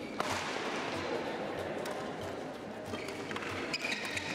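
Badminton hall sounds: sharp hits of a racket on a shuttlecock and short squeaks of shoes on the court floor, over a murmur of people in the hall.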